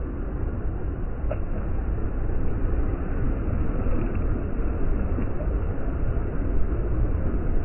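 Steady wash of sea surf breaking in shallow water, under a heavy low rumble of wind buffeting the microphone.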